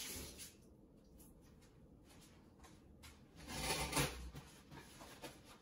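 Kitchen sink tap running, shut off about half a second in, followed by quiet handling clicks and a short, louder rushing noise about three and a half seconds in.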